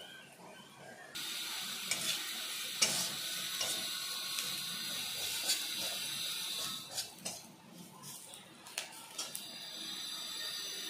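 Poppy-seed paste, onions and ground spices sizzling in hot mustard oil in a steel kadai while a metal spatula stirs them, scraping and clicking against the pan. The sizzle starts about a second in, eases off around seven seconds, and picks up again near the end.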